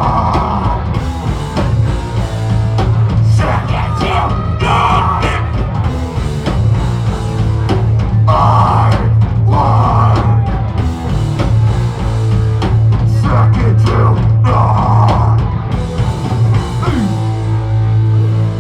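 A loud rock band playing live, with distorted guitars, bass and a pounding drum kit. Near the end the drums stop and a held chord rings out.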